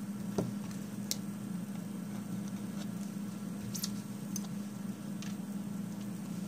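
Light clicks and short scrapes of nail-stamping tools on a metal stamping plate, as polish is scraped across an image and a silicone stamper is pressed onto it, over a steady low hum.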